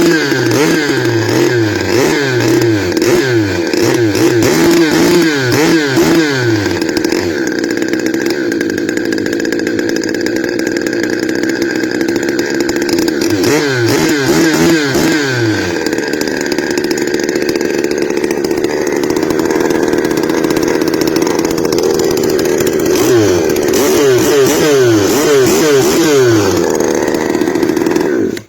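Two-cylinder two-stroke engine of a radio-controlled long-tail boat running hard, its pitch swinging up and down repeatedly as the throttle is worked, in three spells: at the start, about halfway through, and near the end.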